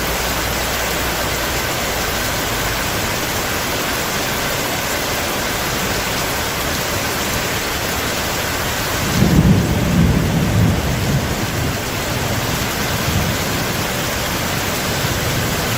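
Heavy rain falling steadily. About nine seconds in, thunder rolls in as a low rumble for two or three seconds, then dies away into fainter rumbles.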